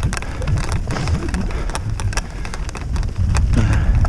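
Wind buffeting and jolting on a head-mounted camera travelling fast over a rough grass track: a steady low rumble with rapid, irregular crackling clicks.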